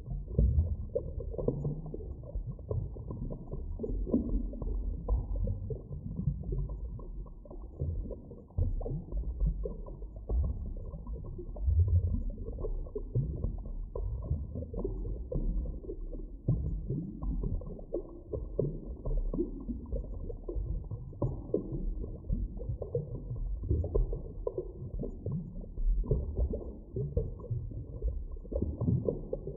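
Deep underwater ambience: a muffled, low rumbling wash that swells and ebbs unevenly, with nothing heard above the low range.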